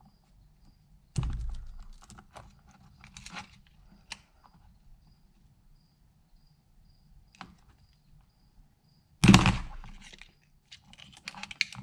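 Small plastic wire plugs being wiggled and pulled off an electric skateboard's main controller board: scattered small clicks and handling rustle of fingers and wires, with a sharp knock about a second in and a louder one about nine seconds in.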